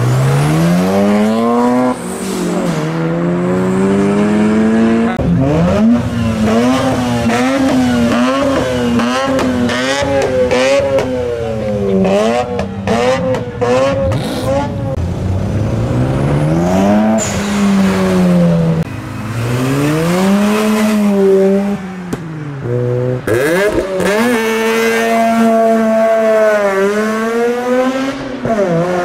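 Mazda rotary engines revving and accelerating in a series of short clips, the engine note climbing and falling again and again. Through the middle the revs are flicked up and down quickly several times, and the sound switches abruptly from one car to the next a few times.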